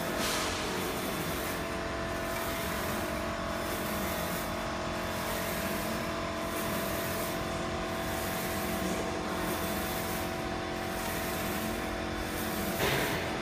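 2513 UV flatbed printer printing on ceramic tiles: a steady whirring machine noise with a few steady tones. It swells and eases about every one and a half seconds as the print carriage shuttles back and forth.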